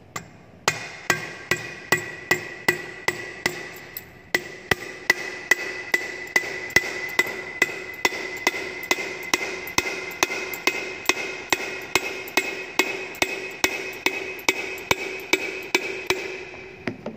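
Soft-face plastic mallet tapping steadily on a centrifugal pump shaft, about two or three blows a second, driving the shaft and its ball bearing into the pump's bearing housing. Each blow leaves the metal housing ringing, with a brief pause in the tapping about four seconds in.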